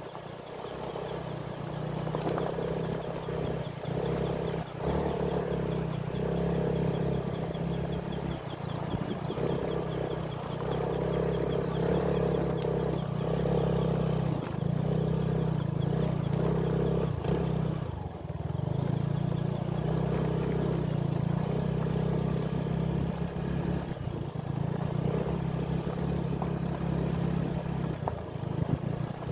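Motor engine running steadily, its note swelling and easing now and then, with a brief dip about 18 seconds in.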